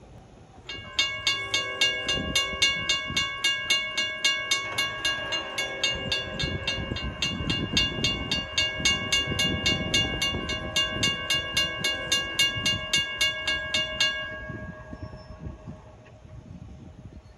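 Railroad crossing warning bells, a WCH mechanical bell and a Safetran Type 2 electronic bell, start ringing about a second in at about four strikes a second while the crossing gates come down. The ringing cuts off abruptly about fourteen seconds in, with a faint ringing tone fading out over the next couple of seconds.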